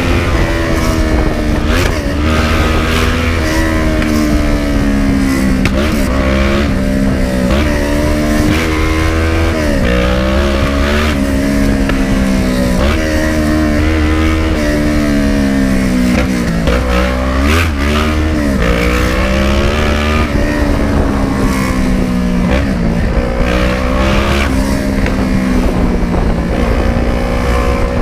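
Kawasaki ER-6n 650cc parallel-twin motorcycle engine with a very loud exhaust, ridden in traffic. The engine pitch rises and falls again and again with the throttle, with several quick drops.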